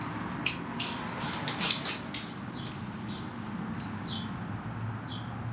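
Small bird chirping in short, slightly falling notes every second or so over a steady outdoor background hum, with a few brief rustles in the first two seconds.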